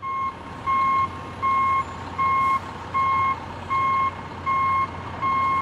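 Excavator's reversing alarm beeping seven times, evenly about three-quarters of a second apart, each beep a single steady tone, over steady engine noise.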